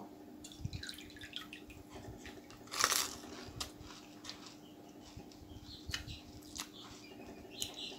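Pani puri being eaten: the crisp, pani-filled shell crunching and squishing in the mouth, then wet chewing with small clicks, over a faint steady hum. The loudest crunch comes about three seconds in.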